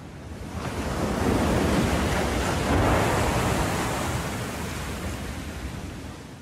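Ocean waves: one long swell of surf noise that builds over the first second or two and fades away near the end.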